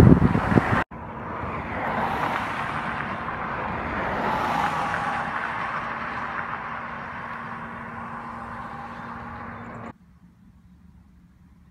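Outdoor road traffic: vehicles passing with a steady low hum, swelling and fading. The sound is cut abruptly twice, about a second in and near the end, leaving only faint hiss.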